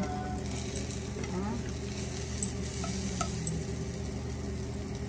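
Steady sizzling of food frying in oil in a pan, over a low steady hum, with a few light clicks.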